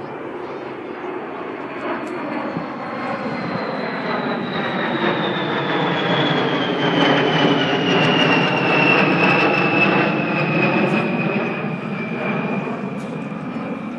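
A B-52H Stratofortress's eight turbofan engines passing in a fly-by: loud jet engine noise that builds to its peak a little past halfway and then eases, with a high whine that falls steadily in pitch as the bomber goes by.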